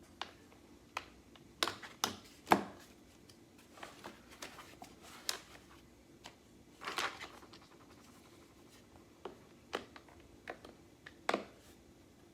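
Plastic parts of an IKEA Vesken shelf unit knocking and clicking as a shelf is fitted onto its legs: scattered sharp clicks and knocks, the loudest about two and a half seconds in and a short clatter about seven seconds in.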